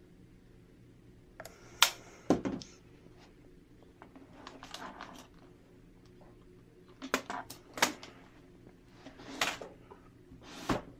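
Irregular clicks and clatter of computer hardware being handled, a few sharp knocks among them, over a faint steady low hum.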